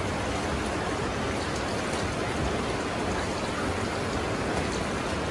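Steady rush of flowing river water: an even, unbroken hiss at a constant level.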